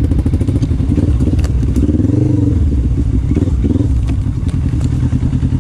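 Quad bike (ATV) engine running as it rides a dirt trail, its note swelling up and back down about two seconds in, with several sharp knocks and clatter from the machine over bumps.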